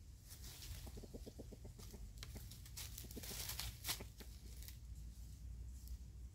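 Red junglefowl rooster clucking in a quick run of short notes, then dry leaf litter crackling and rustling as it walks and scratches through it.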